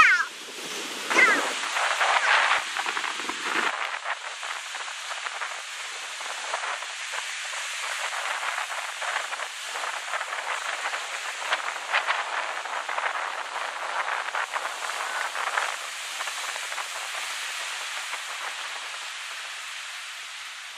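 Ocean surf washing up a sandy beach: a steady hiss of breaking waves and foam. A couple of brief, bending high-pitched sounds come near the start.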